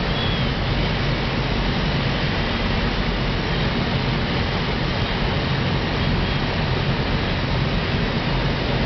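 Steady engine and propeller drone of a Rallye 100 light aircraft with airflow noise, heard from inside the cockpit on short final approach. The level holds even throughout, with no change in power.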